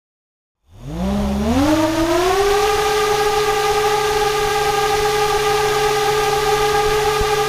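Homemade radial brushless electric motor with a two-blade propeller spinning up about a second in, its whine rising in pitch and then holding steady at a high pitch.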